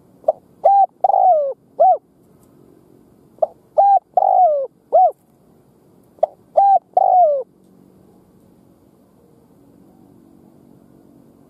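Spotted dove singing its cooing song, three phrases about three seconds apart; each phrase is a few short coos with one longer, downward-falling note near its end. It is a caged decoy dove's call, used to provoke wild doves.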